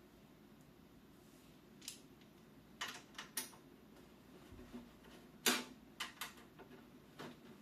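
A run of irregular sharp clicks and taps, about eight in a few seconds with the loudest a little past the middle, over a faint steady hum.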